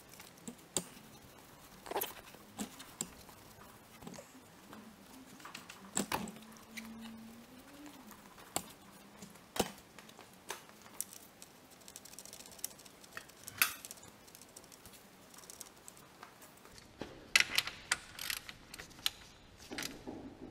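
Scattered light clicks and knocks of hand tools and a plastic oil catch container under a car, then a quick run of sharp clicks near the end as a wrench is worked on a bolt under the engine.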